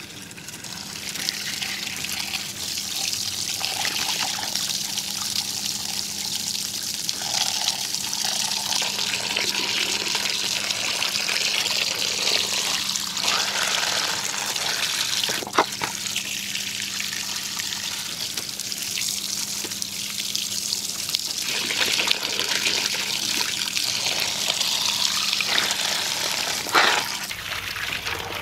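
Water running from a tap into a plastic basin while hands swish and rinse peeled bamboo shoots, the water splashing and spilling over as the basin is tipped out. Two sharp knocks stand out, about halfway through and near the end.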